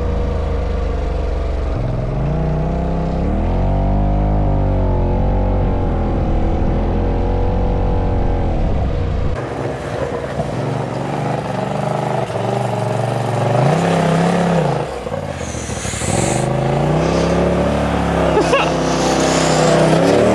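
Side-by-side UTV engine revving up and easing off again and again as the machine is driven hard, with several rising and falling runs.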